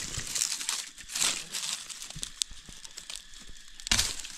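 Dry bamboo leaf litter rustling and crinkling as it is disturbed, in a few short bursts, the loudest near the end.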